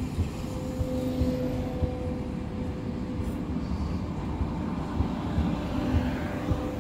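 ES2G 'Lastochka' electric multiple unit pulling away from the platform: a steady low rumble of wheels on rail with light knocks, under an even hum from the traction equipment, and a faint rising whine near the end as it picks up speed.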